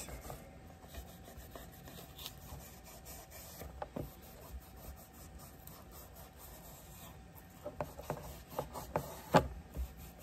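Cloth rubbing and scrubbing cleaner into a worn leather knife sheath: soft, repeated scuffing of fabric on leather. There are a few sharper scrapes and knocks in the last few seconds.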